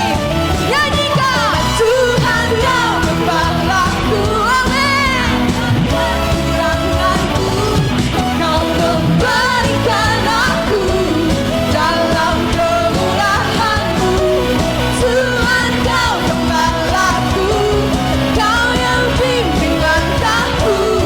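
Live worship band music with a voice singing over it, steady and full throughout.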